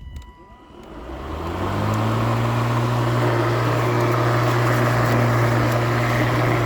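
Lawn mower motor starting up: it spins up smoothly over about a second, then runs at a steady hum with a rushing hiss.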